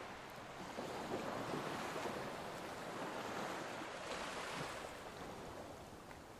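Soft, steady wash of small waves on a beach with wind; no distinct events.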